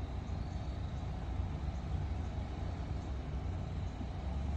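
Steady low rumble of a vehicle running, with no distinct events.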